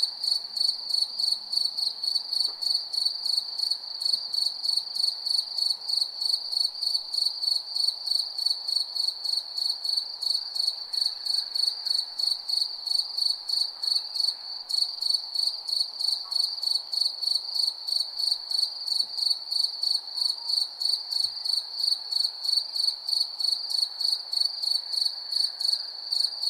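Crickets chirping at night: a high, pulsed chirp repeating a few times a second, steady and unbroken, over a faint background hiss.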